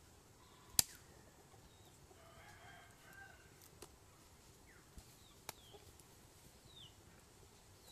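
A rooster crows faintly for about a second, roughly two seconds in, among a few thin bird chirps. A single sharp click near the start is the loudest sound, with a softer one later.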